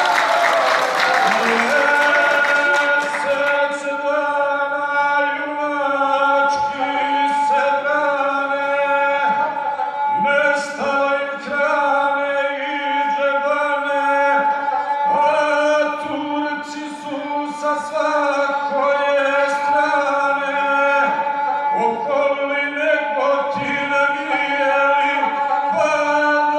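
A man singing an epic song to his own gusle accompaniment, the bowed single-string instrument keeping a steady line under the voice.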